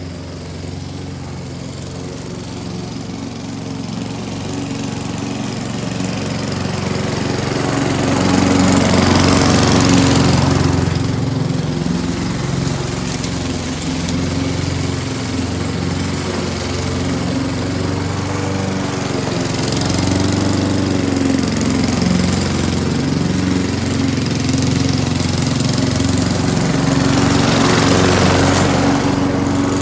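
Gas walk-behind lawn mower running steadily while mowing. It gets louder twice, about ten seconds in and near the end, as it comes close.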